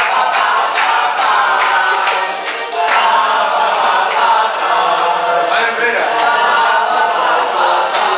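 Many voices chanting a repeated 'pa-pa-pa-pa-pa' refrain together over a karaoke backing track of upbeat pop music.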